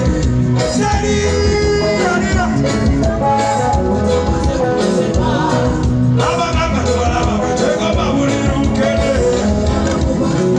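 Loud music with singing over a bass-heavy backing.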